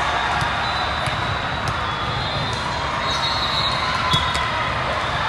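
Volleyball gym din: a steady background roar of the hall, with about five scattered sharp smacks of volleyballs being hit and bouncing on the court.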